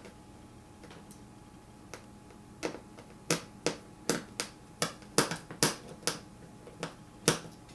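A run of sharp, irregular clicks, about fifteen of them, starting about two and a half seconds in.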